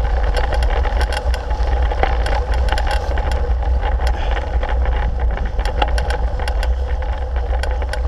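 Wind buffeting the microphone of a GoPro Hero 3 on a moving bicycle, making a steady low rumble, with riding noise and many small clicks and rattles throughout.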